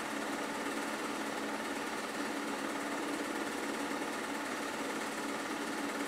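A small machine running steadily, a constant mechanical whir with hiss that does not change across the picture cuts.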